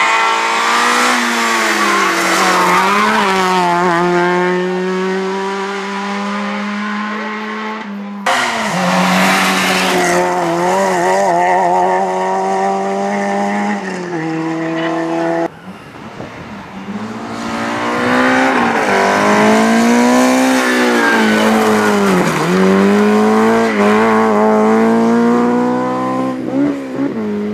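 Rally car engines revving hard as the cars drive past on a stage. The engine pitch rises and falls as each car accelerates and lifts off. The sound breaks off abruptly about eight seconds in and again about fifteen seconds in, as one car gives way to the next: a Peugeot 206, then an Opel Corsa, then another small hatchback.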